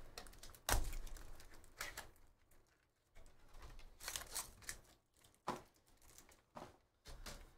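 Trading-card pack being handled and opened by hand: scattered crinkles and sharp clicks of plastic wrap and card packaging, several of them spread out with short quiet gaps.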